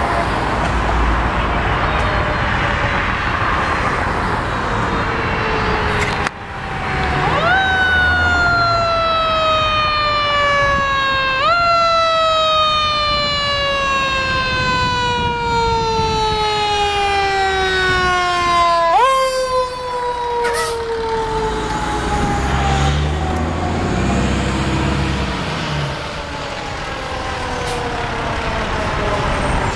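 Fire truck siren sounding in long sweeps: each one jumps up sharply and then slowly falls in pitch. The jumps come about a quarter of the way in, near the middle and about two-thirds in, and the siren is fainter in the first few seconds.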